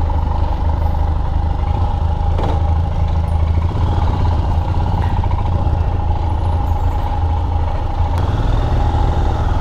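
Royal Enfield Himalayan's 411 cc single-cylinder engine running at low revs, idling as the bike pulls away and rolls slowly. The low, steady engine rumble carries a constant higher hum over it.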